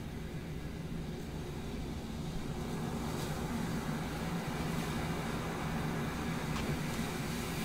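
Steady low hum under an even hiss of background room noise, with two faint ticks, one about three seconds in and one near the end.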